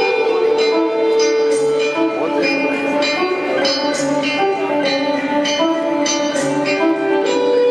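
Live band music: sustained held notes and plucked-string lines over light percussive strikes that come at a steady pace, a little under one a second.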